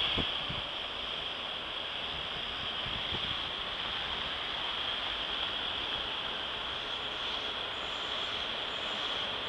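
Steady rushing rail noise of a train approaching on the track, growing a little louder near the end.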